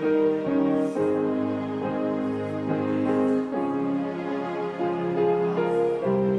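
Hymn music on a church keyboard instrument: slow, held chords that change about once a second.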